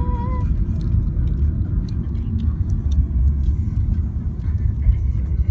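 A car driving, heard as a steady low road and engine rumble.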